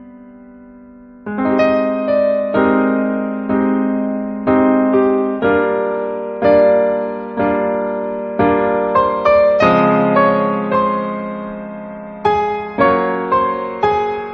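Slow piano music: notes and chords struck about once a second, each ringing out and fading, beginning about a second in after a quiet lull.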